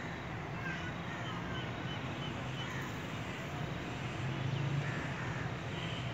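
Outdoor background of a steady low rumble, with a quick run of short bird chirps about a second in and a few fainter chirps later.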